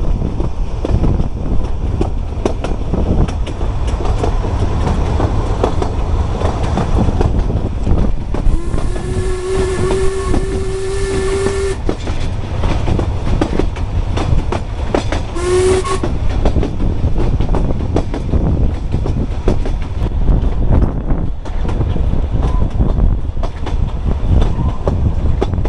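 Narrow-gauge train heard from inside a carriage: steady wheel rumble with rapid clicking and rattling over the track. About eight seconds in, the steam locomotive's whistle sounds one long blast of about three seconds, then a short blast about four seconds later.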